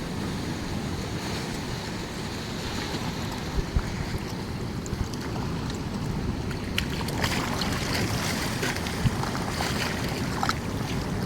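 Wind rumbling on the microphone over the wash of sea water at the shore, with scattered small clicks; the water grows louder about seven seconds in.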